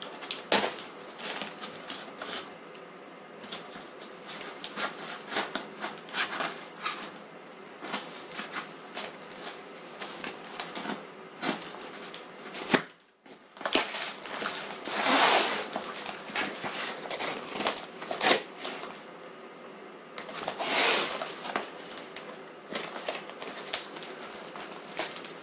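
Tape-wrapped cardboard packaging being pulled and torn open by hand, with crackling tape and plastic wrap and scattered clicks. There are two longer ripping stretches, one a little past halfway and one later on.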